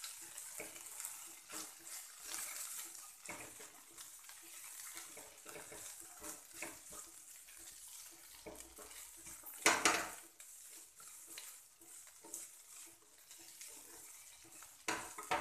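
A spatula stirring and scraping sliced potatoes around a kadhai, with a faint steady sizzle of the potatoes frying in mustard oil. One louder scrape of the spatula against the pan about ten seconds in.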